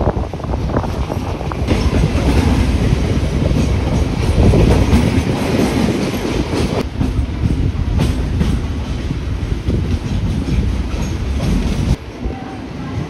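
Mumbai local suburban electric train running, a loud rumble with wheels clattering over the rail joints; the sound drops in level about a second before the end.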